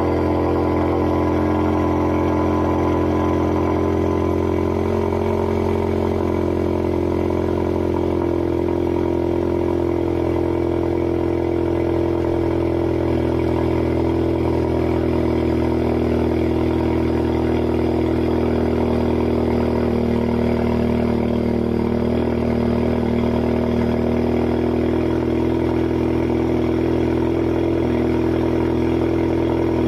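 2017 Ford Mustang EcoBoost's 2.3-litre turbocharged four-cylinder engine idling steadily just after start-up, heard through a muffler delete with 3-inch pipes and tips.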